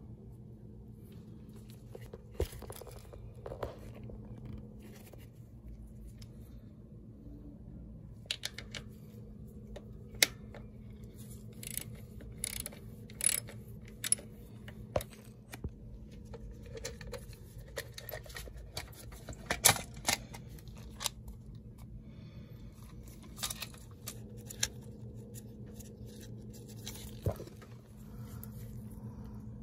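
Scattered sharp clicks and short scrapes of a hand tool and gloved hands working the screws and plastic distributor cap on a Honda CRX distributor, over a steady low hum.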